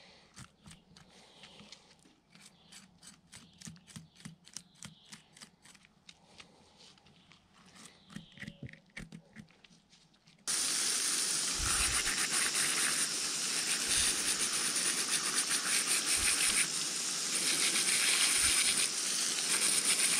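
Knife blade scraping scales off small roach and rudd, a run of quick, quiet scrapes. About halfway through, a hose starts spraying water over the fish on a plate: a sudden, steady, loud hiss.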